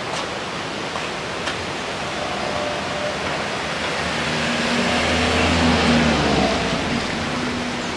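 A small hatchback car drives past on a wet road. Its engine hum and tyre noise swell, peak about six seconds in, then fade. A steady rush of running water sounds throughout.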